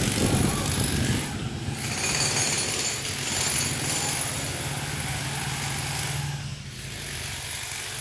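Electric demolition hammers breaking concrete, a rapid hammering that is loudest for the first couple of seconds, over a steady engine hum.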